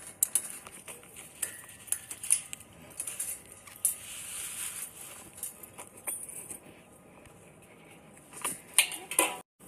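Metal clinks and rattles from a wire-mesh cage panel and its fittings being handled, in a string of irregular sharp knocks with a busier cluster near the end.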